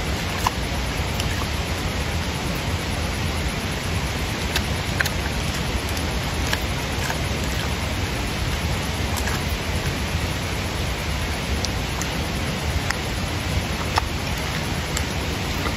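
A steady, even hiss throughout, with scattered sharp crunchy clicks every second or two as a giant panda chews a hard piece of food.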